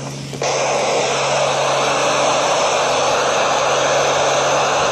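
Steady static hiss from a ham radio receiver tuned to the ISS downlink, cutting in abruptly about half a second in once the crew's voice stops: no signal is coming through, so the receiver puts out only noise.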